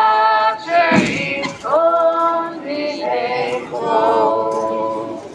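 A group of voices, women and men, singing a hymn unaccompanied in long held phrases; the singing stops near the end.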